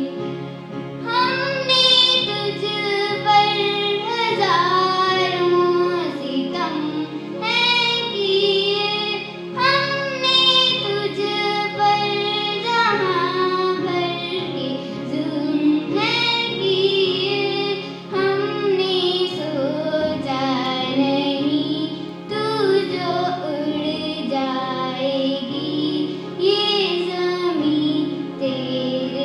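A child singing a slow Hindi song, the voice gliding between held notes, over steady sustained instrumental accompaniment.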